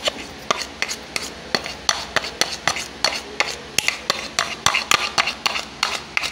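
A spoon scraping and clicking against a bowl, several irregular clicks a second, as ground spice paste is scraped onto raw minced chicken and stirred in.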